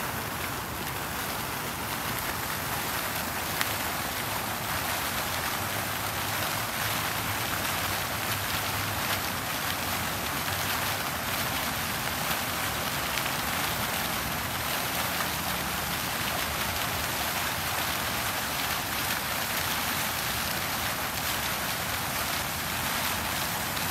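Small fountain jets splashing steadily into a shallow pool.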